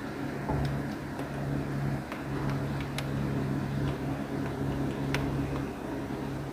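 Heavy rain falling as a steady hiss, with scattered sharp ticks of drops striking a hard surface. A steady low hum runs underneath and stops near the end.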